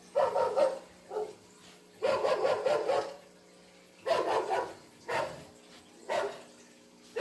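A dog barking repeatedly, about six barks with short pauses between them, a few of them drawn out to nearly a second.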